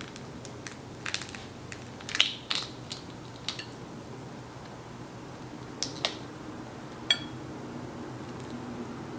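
Close-up mukbang eating sounds: scattered wet clicks and crackles of chewing and handling spicy shrimp and curry, with a brief ringing tick about seven seconds in, over a steady low hum.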